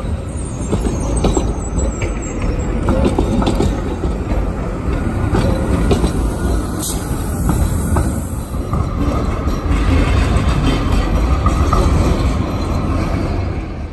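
GTT articulated tram passing close while turning through a junction: a steady rumble of the running gear with a run of clicks and clatter as its wheels cross the rail joints and crossings, and a faint high wheel squeal on the curve in the first few seconds.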